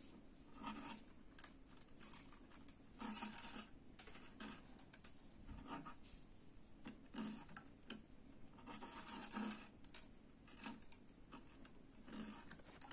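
Faint rustling and scratching of waxed thread being handled and pulled tight into macramé knots, in short scattered strokes.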